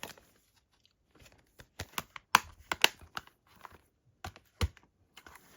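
Plastic Blu-ray cases being handled, giving a string of sharp clicks and taps, irregularly spaced, with quiet gaps between.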